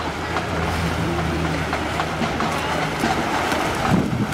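Steady background noise with a low hum that fades out about three seconds in, and a few faint knocks.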